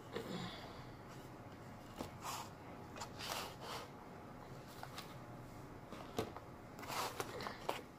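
Handling noise from craft work: several short rustles and a few sharp clicks and soft knocks as a hot glue gun and a paddle are picked up and set down on a craft mat.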